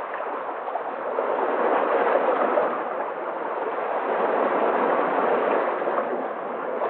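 Sea waves washing in a steady rush of surf, swelling and easing every few seconds.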